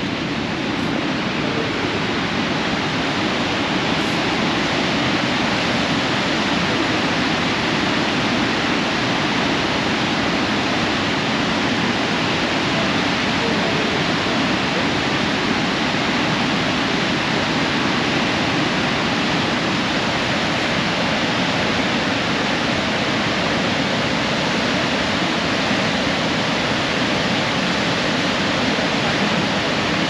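Niagara Falls: the steady, loud rush of a huge volume of falling water, unbroken throughout.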